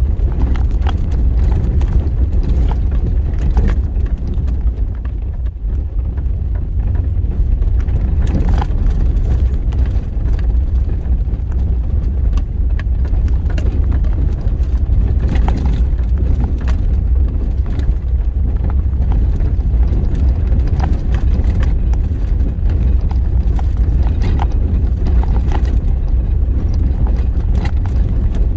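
A 4x4 vehicle driving over a rough, bumpy dirt road: a steady low rumble with frequent small clicks and knocks as it rattles over the bumps.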